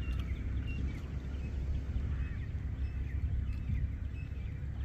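Scattered short, high bird calls over a steady low rumble.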